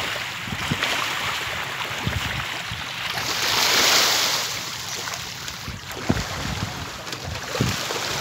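Water washing around a floating fish cage with wind buffeting the microphone, and a louder hissing spatter swelling and fading about three to five seconds in as a scoop of feed pellets is thrown onto the water and fish splash up to take it.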